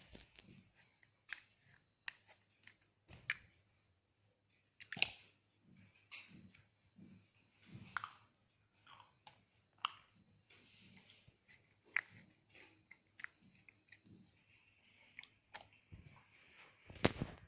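Slime being mixed and squeezed by hand: irregular sticky squishes and small popping clicks.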